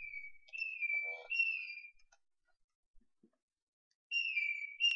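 High, clear whistle-like tones: one held note lasts about two seconds, wavering and stepping up in pitch partway through. After a two-second pause, a similar note begins about four seconds in and slides slightly downward.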